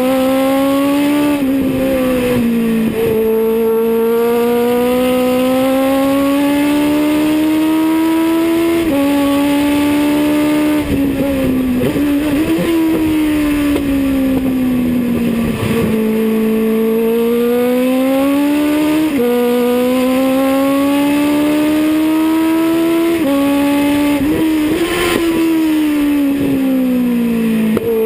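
Legends car's Yamaha four-cylinder motorcycle engine at racing speed, heard from inside the cockpit. Its pitch climbs under acceleration, jumps abruptly at several gear changes, and slides down slowly as the car slows for corners, over steady wind and road noise.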